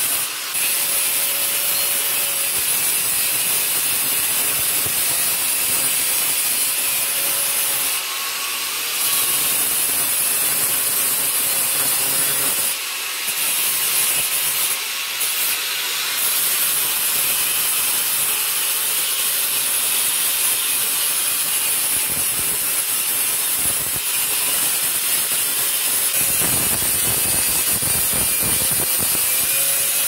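Angle grinder running with a paint-stripping disc pressed against metal pipes, grinding off the old paint with a steady high whine over the rasping. The grinding eases briefly a few times midway as the disc is moved along the pipes.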